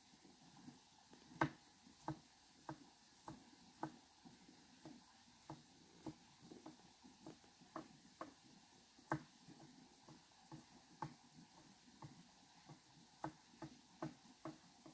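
Near silence broken by faint, irregular ticks and taps, about one or two a second.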